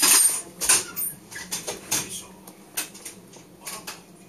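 Irregular light clicks and taps, a dozen or so, the loudest one at the very start, over a faint steady hum.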